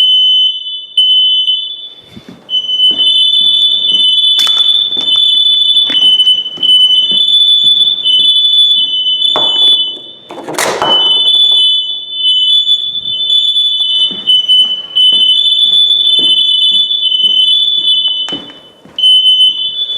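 Home smoke alarm sounding its loud, high-pitched piezo beep in long pulses with short breaks, set off by aerosol smoke-detector tester. A brief loud burst of noise cuts across it about halfway through.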